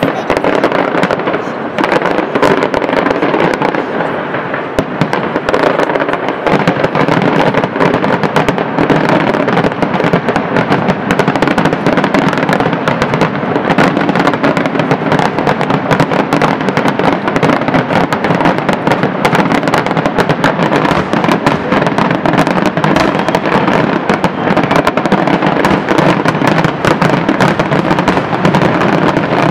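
A dense barrage of aerial firework shells bursting in rapid succession: a continuous rattle of bangs and crackles that grows thicker and louder about six seconds in.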